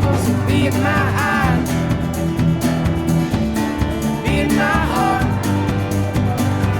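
Background music: an instrumental stretch of a song with guitar, sustained chords and a steady beat.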